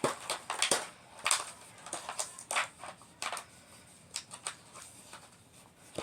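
Irregular crinkling and clicking of small plastic toy parts and packaging being handled, busiest in the first few seconds and thinning out after.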